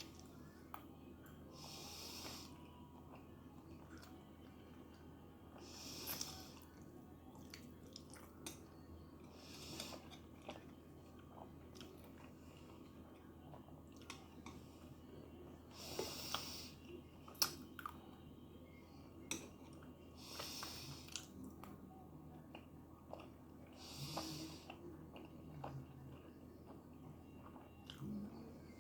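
Close-miked chewing of tteokbokki rice cakes, with many small wet clicks of the mouth. A soft hissing breath comes about every four seconds.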